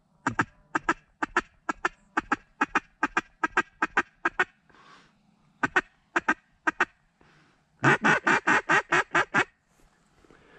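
Duck quacking in quick runs of short, close calls: a long run of about four quacks a second, a short run of four, then a louder, faster run near the end.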